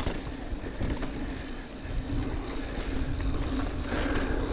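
Steady wind rumble on an action-camera microphone during a mountain-bike ride, with the rolling noise of the bike on the trail underneath.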